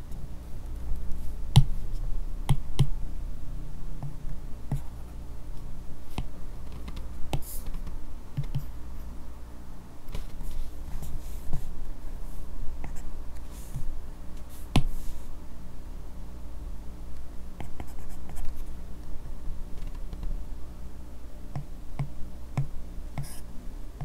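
Apple Pencil's bare plastic tip tapping and stroking on an iPad Pro screen covered with a paper-texture film: irregular sharp taps with soft scratching between them.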